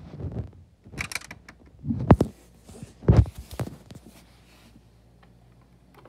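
Hard plastic of a toy playset clacking and knocking as it is handled: a rustle, then three or four sharp knocks, the two loudest about two and three seconds in, before it falls quiet.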